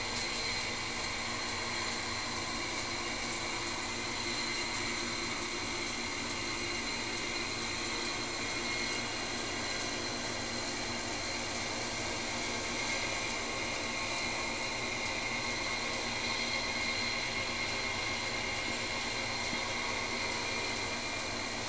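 Small brass model steam engine running on compressed air from an aquarium air pump, giving a steady airy hiss and whir with no distinct strokes.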